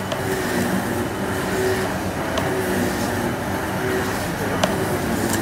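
Workshop machinery running with a steady mechanical noise and a faint hum, with two short sharp clicks partway through.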